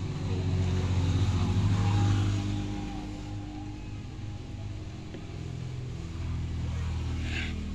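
A motor engine humming nearby, loudest about a second or two in, then easing off and swelling again near the end. A brief high-pitched sound comes just before the end.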